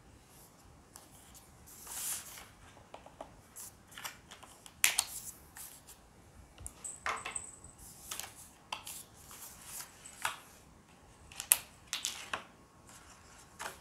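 Cardboard sleeve and hard plastic carry case being handled and turned on a table: scattered short scrapes, rubs and light clicks at irregular intervals.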